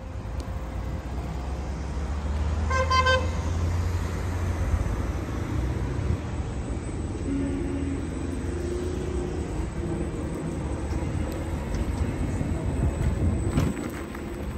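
Street traffic rumbling steadily, with one short car horn toot about three seconds in.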